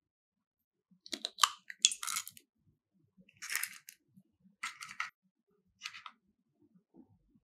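Kitchen preparation handling sounds: four short bursts of crackly clicking and scraping a second or so apart, with faint knocks between them.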